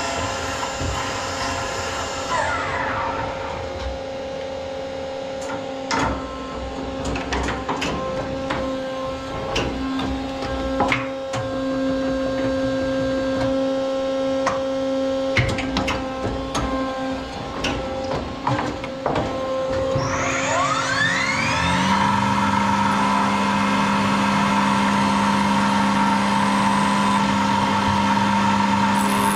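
Matsuura 710V CNC vertical mill at work. About two seconds in the spindle winds down, followed by a run of clicks and clunks from the hydraulic tool change over a steady machine hum. Near two-thirds of the way through, the spindle spins back up and runs steadily as it cuts a brass part.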